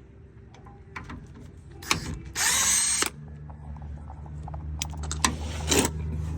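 Power wrench spinning briefly, loosening bolts on a pickup's front suspension, about two and a half seconds in and again briefly near the end, between small clicks of tools and parts. A steady low hum starts about three seconds in.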